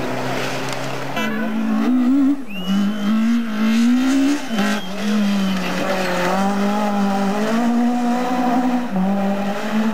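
Rally car engines at full throttle, revving up through the gears: the engine note climbs, drops at each gear change and climbs again, several times over.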